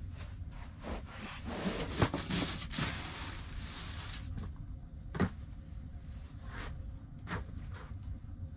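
A heavy sheet mat being spread over a bed of split logs: a rustling swish lasting a couple of seconds with a sharp knock in the middle, then another knock about five seconds in and a few fainter knocks and taps.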